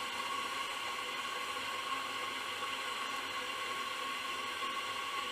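Steady even hiss with a faint constant hum, no distinct event.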